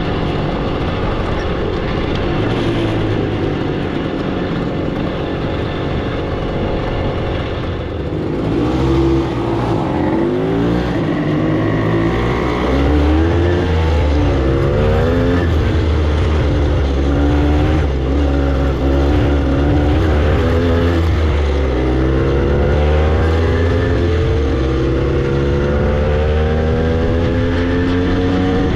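Vintage two-stroke motorcycle engine heard from the rider's seat, running steadily at low speed at first. From about eight seconds in it accelerates, the pitch repeatedly climbing and dropping back as it shifts up through the gears.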